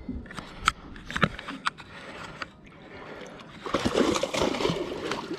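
A few sharp clicks and knocks, then water splashing and sloshing against a small fishing boat from about two-thirds of the way in.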